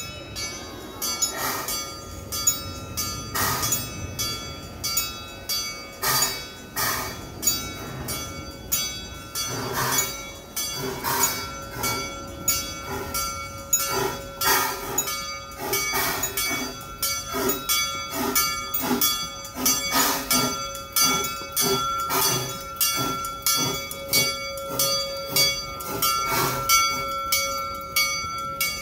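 Steam locomotive chuffing as it pulls slowly in, a run of regular sharp exhaust beats, with steady ringing tones of a bell under them.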